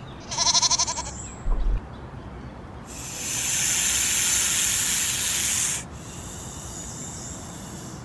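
A sheep bleats once with a short quavering call. A few seconds in, a snake hisses: a long, steady hiss lasting nearly three seconds, the loudest sound here.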